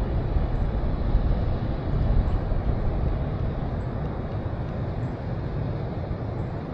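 Steady low rushing noise of flowing creek water, mixed with wind buffeting the microphone. It eases slightly in the second half.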